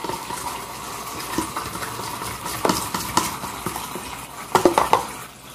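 Light clinks and knocks of a glass jar and a plastic container being handled, over a steady hiss, with a cluster of sharper knocks near the end.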